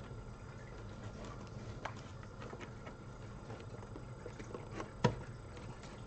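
Small clicks and rustles of plastic Molex power connectors, wires and IDE drives being handled while hooking up the drives, with one sharper knock about five seconds in.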